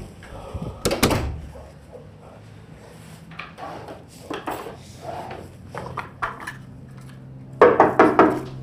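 A wooden bedroom door is pushed shut with a thud about a second in. Then a dresser drawer is rummaged through, with small knocks and rustling. Near the end comes a quick series of knocks on the door.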